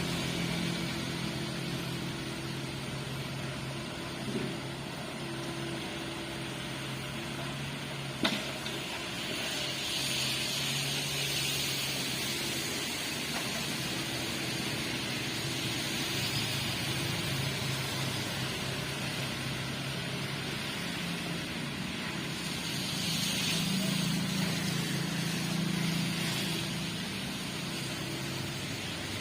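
Diesel engine of heavy machinery running steadily, swelling louder twice, with a single sharp knock about eight seconds in.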